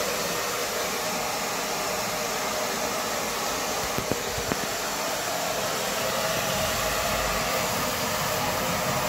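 Blow dryer running steadily on a dog's wet coat after a bath, a continuous rushing whir, with two small clicks about four seconds in.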